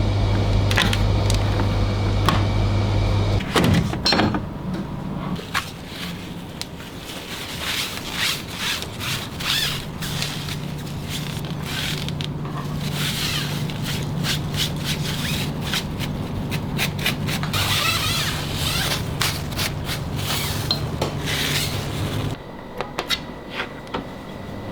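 Rubbing, scraping and knocking from cleaning work on a laundry appliance, with many short clicks. A steady hum stops about three seconds in, and another steady hum runs from about ten seconds in until near the end.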